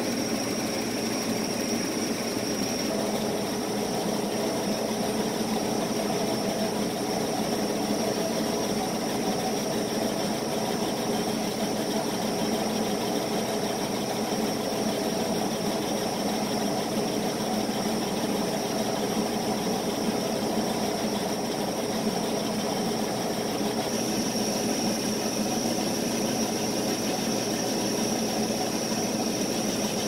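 Epilog laser engraver running while raster-engraving wood: a steady mechanical whir from the head shuttling rapidly back and forth, with a high steady whine that grows stronger about three-quarters of the way through.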